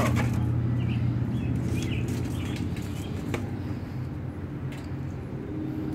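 Birds chirping in short, repeated calls over a steady low hum, with a single sharp click about three and a half seconds in.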